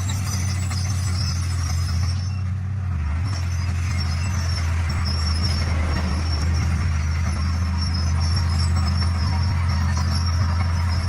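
D41 bulldozer's diesel engine running under steady load with a low, even drone. The higher-pitched machine noise eases briefly about two to three seconds in.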